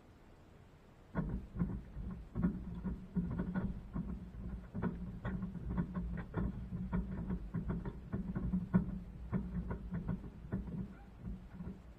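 LG washing machine drum heard from inside. About a second in, the drum starts turning, and a steady motor hum runs under a dense run of irregular knocks from the tumbling load, easing off near the end.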